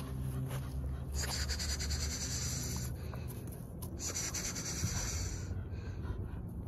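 American Pit Bull Terrier puppy panting rapidly after running, in two spells of about a second and a half each.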